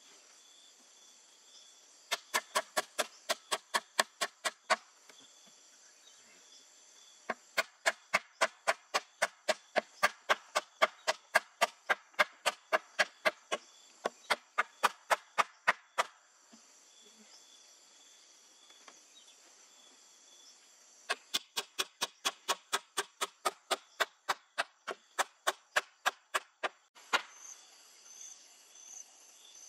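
Rapid strikes of a small hatchet on a wooden pole, about five a second, in three runs with pauses between, over a steady high drone of insects.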